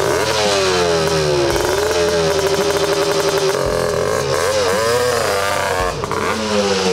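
Honda ATC 250R three-wheeler's two-stroke single-cylinder engine running as it is ridden off. Its pitch drops early on, holds, dips briefly past the middle and rises again near the end as the throttle is worked.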